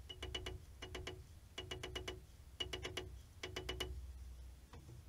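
Rapid light hammer taps on a small metal part, about eight a second in five short bursts, each tap with a bright metallic ring; the tapping stops about four seconds in.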